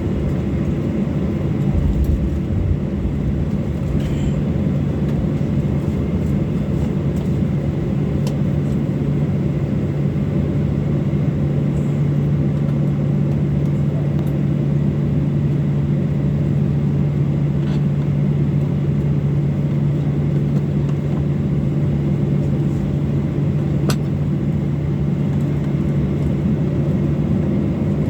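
Cabin noise of a Boeing 737-800 taxiing: its CFM56-7B turbofan engines run at steady taxi power with a low hum and a constant rumble. A low thump from the taxiway comes about two seconds in.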